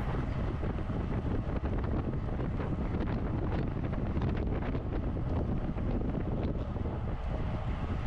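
Steady wind noise buffeting the microphone from riding a road bike at speed.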